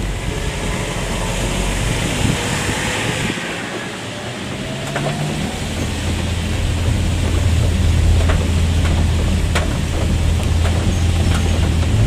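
Car engine and road noise heard from inside the cabin while driving a forest road. The engine note dips briefly about four seconds in, then settles into a deeper, louder rumble.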